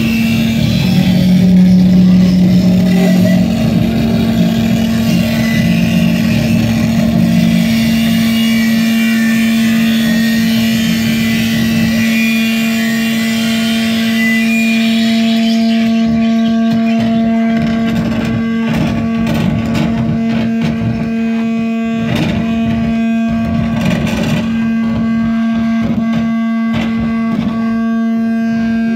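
Live noise-music set played loud through a venue PA: a dense wall of harsh noise that thins out about halfway through, leaving a steady low drone with crackles and clicks over it.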